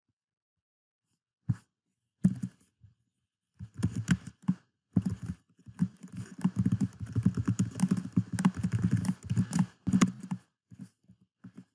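Typing on a computer keyboard: a couple of single keystrokes, then a fast, continuous run of key clicks for about six seconds that stops shortly before the end.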